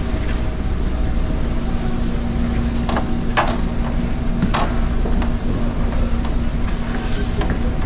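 Steady low drone of a large car ferry's engines and machinery heard inside the ship, with a constant hum. Several short clinks sound about three to five seconds in.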